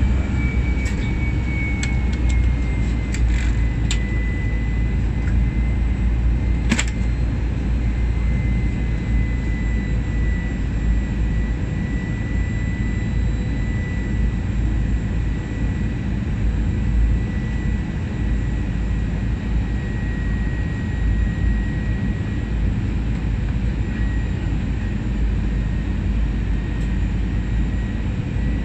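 Cabin noise of a British Airways Airbus A318 climbing after takeoff, heard from a window seat: the steady rush and drone of its CFM International CFM56 turbofans, with a high whine that settles slightly lower over the first few seconds and then holds. A single sharp click about seven seconds in.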